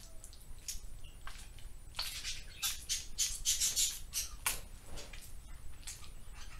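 Slime squelching and crackling as it is kneaded and squeezed between the hands with lotion to soften it. It is a quick, irregular run of short wet squishes, busiest in the middle.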